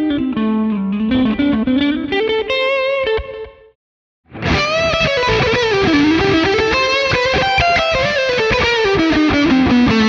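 Overdriven electric guitar playing melodic single-note lead phrases through NUX MG-300 amp modelling, with no distortion pedal in the chain. A lighter crunch tone stops about three and a half seconds in, and after a brief silence a fuller, heavier high-gain tone takes over.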